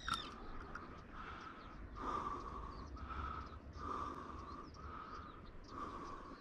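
Hard breathing close to the microphone, about one breath a second, stronger and weaker breaths taking turns, each with a faint whistle, as the angler strains to play a hooked fish.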